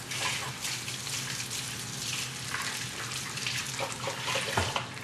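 Pistachio-crusted chicken breast frying in hot oil in a nonstick skillet: a steady sizzling hiss with small scattered crackles.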